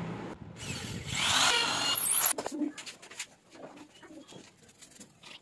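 A power tool runs for about two seconds, its pitch sliding, and cuts off abruptly. After that come soft scattered taps and clicks as a paintbrush is worked in a small tin of paint.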